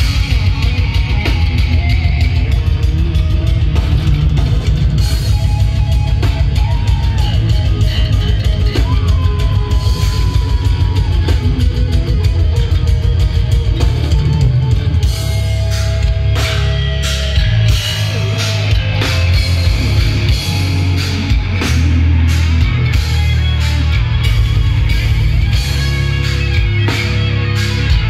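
Death metal band playing live: fast, dense drumming under distorted electric guitars, with a guitar line sliding in pitch now and then.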